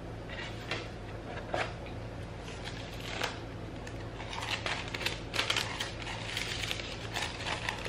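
Paper and cardboard rustling and crinkling as a card is handled and a small cardboard gift box is opened and its paper lining unfolded, with scattered light clicks and taps. The handling is busier in the second half.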